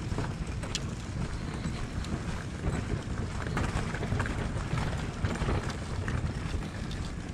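Wind buffeting the microphone with a steady low rumble, and faint footsteps on pavement as the camera-wearer walks.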